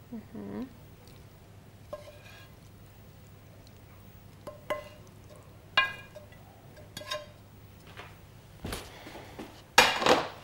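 A wooden spatula knocking and scraping against a nonstick frying pan and a ceramic plate as sautéed green beans are pushed out of the pan: scattered clinks, a few with a short ringing tone, and a louder clatter near the end.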